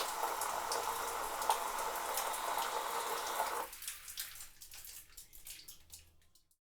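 Water spraying from an electric 'suicide' shower head with a built-in heater, a steady hiss that stops about halfway through. Drips and splashes follow and fade out.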